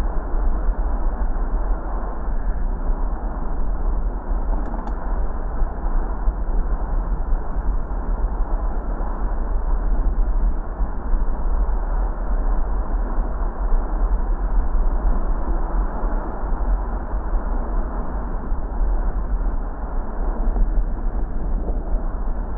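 Steady road noise of a car driving: a constant deep rumble of tyres and engine.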